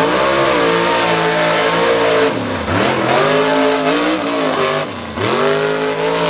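Mud truck's engine at full throttle, revving hard with its pitch climbing; the revs fall away about two and a half and five seconds in, then climb again each time.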